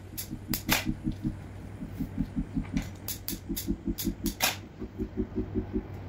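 Scissors snipping flower stems: a few sharp snips, the loudest under a second in and about four and a half seconds in. Under them runs a low, pulsing beat of background music.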